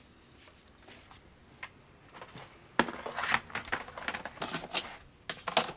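Handling noise: after a quiet start, a run of short clicks, knocks and rustles begins about three seconds in, as things are moved and handled.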